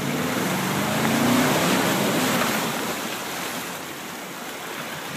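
Muddy pond water rushing and splashing against the side of a Chevy Z71 pickup as it drives through, with the engine revving up underneath about a second in. The splashing is loudest early on and eases off slightly toward the end.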